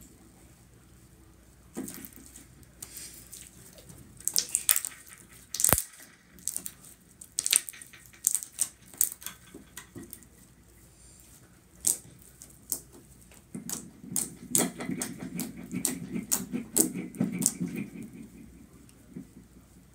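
Hands kneading, folding and poking a large mass of slime: a run of sharp wet clicks and pops as trapped air bursts, coming thickest and with a low squelch in the last third.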